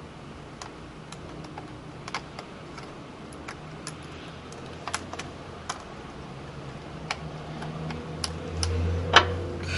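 Small, irregular clicks and ticks of a screwdriver working screws out of a laptop's plastic case, with a louder click near the end.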